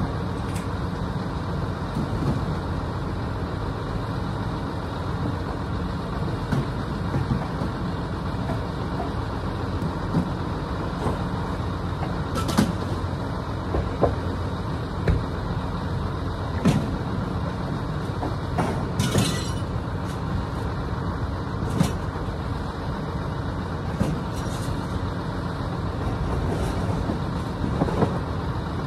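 A motor vehicle running steadily, with scattered clunks and rattles.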